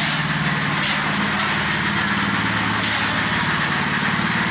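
Engine of a portable drum concrete mixer running steadily with the drum turning, with two brief noises about a second in and near three seconds.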